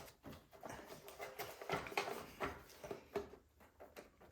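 Faint, irregular clicks and scrapes of a screwdriver working at a plastic choke lever snapped onto a plastic mount on a snowblower engine, trying to pry it loose.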